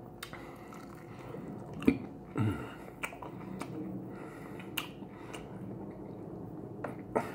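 Close-up chewing and biting of a crispy fried chicken wing: soft mouth sounds with scattered small clicks and crunches.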